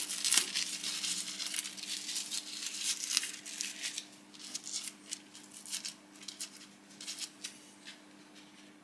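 Crinkling and rustling of stringy Delrin chips as a gloved hand pulls them off the stopped lathe work, in quick irregular clicks that thin out after about four seconds, over a faint steady hum.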